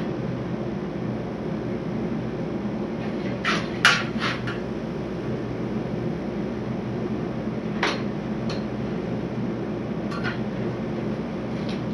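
Light clicks and knocks from a ski-waxing iron and a bar of glide wax being handled against each other over the ski, a cluster of them about four seconds in and single ones later, over a steady low hum.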